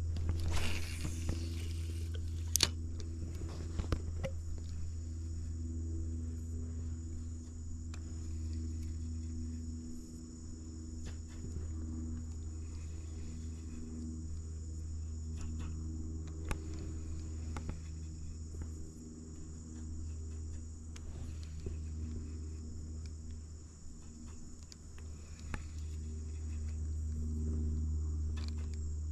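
Steady high-pitched chorus of insects over a low steady rumble. At the start a spinning rod is cast: a brief rushing swish of the line going out, ending in a sharp click about two and a half seconds in, followed by scattered small clicks of the reel during the retrieve.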